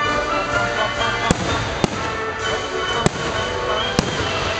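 Aerial fireworks shells bursting: four sharp bangs spread over about three seconds, over music that plays throughout.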